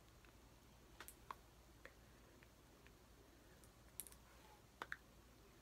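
Near silence broken by about half a dozen faint, scattered clicks: small handling noises of lipstick being applied with a tube and compact mirror.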